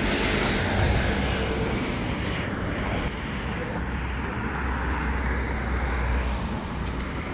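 Road traffic passing on the street below: the noise of one vehicle fades away about two seconds in and another swells near the end, over a steady low rumble.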